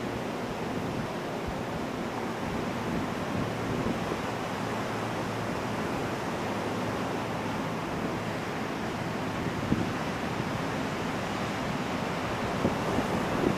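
Ocean surf breaking and washing up onto a beach: a steady rushing wash of waves.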